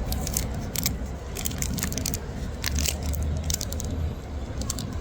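Packaging being torn and unwrapped by hand: irregular crinkling and crackling clicks over a steady low rumble.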